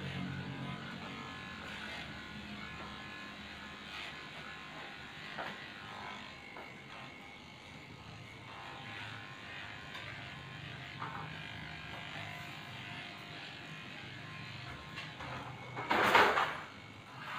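Electric dog grooming clippers running steadily as they shave matted coat off a Shih Tzu. A short, loud noise breaks in about a second before the end.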